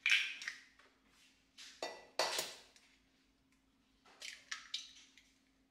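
Raw eggs being cracked against the rim of a glass measuring jug and their shells pulled apart: short crisp taps and shell crackles with light glass clinks, in three bursts about two seconds apart, the middle one the loudest.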